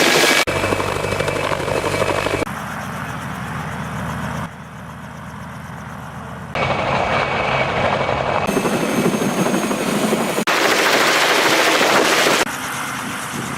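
Helicopter engine and rotor running, heard as a string of short clips that cut abruptly about every two seconds, with the loudness jumping up or down at each cut.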